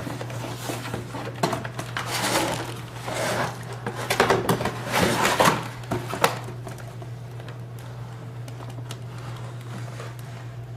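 A cardboard toy box being opened and handled: rustling, scraping and light knocks, busiest in the first six seconds and quieter after, over a steady low hum.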